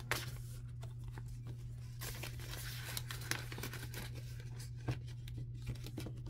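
Clear plastic binder pouches and paper bills rustling and crinkling as they are handled, with a few light clicks of plastic, loudest and busiest about two to three and a half seconds in.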